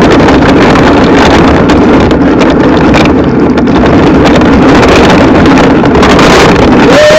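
Loud wind buffeting and rumble on the camera's microphone while riding a scooter. A steady high tone starts just before the end.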